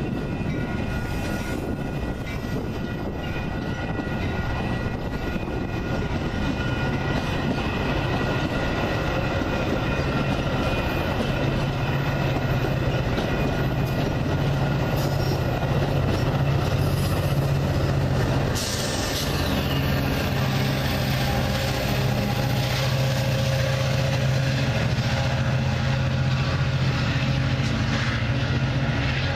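Metra diesel commuter train running past on the station tracks: a steady rumble from the bilevel cars, joined about a quarter of the way in by a steady low engine hum.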